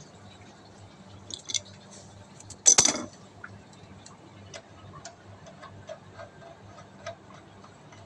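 Small metal clicks and ticks from handling a braided flexible hose and its fittings under an electric water heater, with a few sharper clicks about a second and a half in and one loud clatter just before three seconds.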